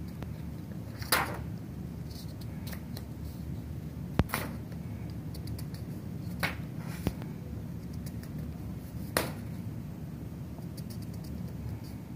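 Sheets of paper rustling briefly as handheld signs are swapped, about five short crisp rustles a few seconds apart, over a steady low hum.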